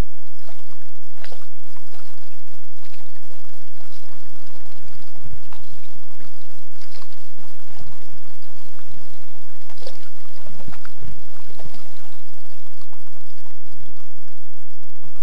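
Kayak paddle blades dipping into lake water in irregular strokes, each a short splash followed by water running and dripping off the blade.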